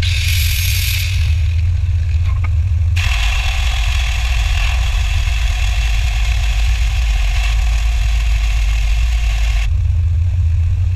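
A loud, steady rumble with a hiss over it, which changes character abruptly twice, about three seconds in and near the end.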